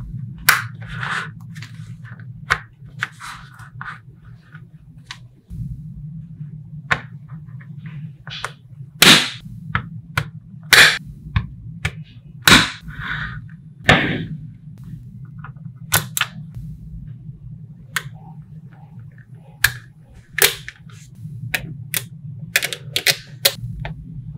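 Small magnetic balls snapping and clicking together as they are placed, irregular sharp clicks, some single and some in quick clusters. A steady low hum runs underneath.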